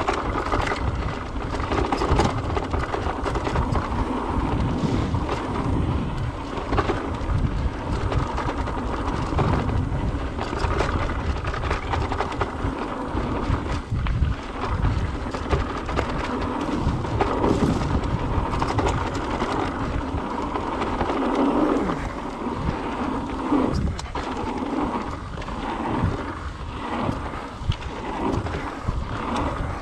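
Mountain bike rolling fast down a dirt flow trail, with steady wind rumble on the microphone and tyre noise. Frequent clicks and rattles come from the bike going over bumps.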